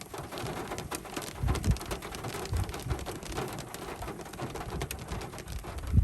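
Rain falling, a dense patter of separate drops hitting a surface, with a few short low thumps; the strongest thumps come about a second and a half in and at the very end.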